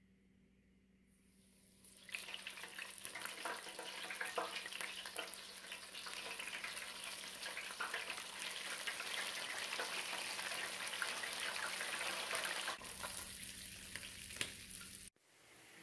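Breaded crappie fillets deep-frying in the hot oil of an electric deep fryer: a dense sizzle full of small crackles and pops that starts about two seconds in, then eases off near the end.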